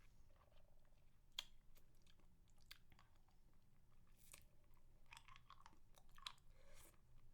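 Faint close-miked mouth sounds of a woman eating a spicy mango lollipop: scattered wet smacks, sucks and small clicks of the candy against her teeth.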